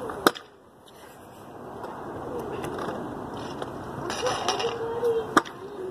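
Stunt kick scooter clacking hard on pavement as it lands a hop: one sharp clack about a third of a second in and another near the end.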